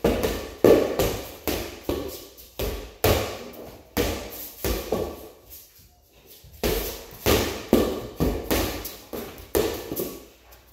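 Red rubber ball being whacked by hand and bouncing off a concrete floor: a quick series of sharp smacks, about two or three a second, each echoing in a large empty garage, with a brief pause about six seconds in.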